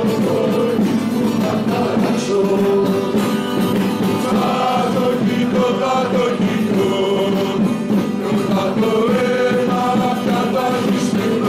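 Football supporters' chant sung in unison by a group of male voices, as music.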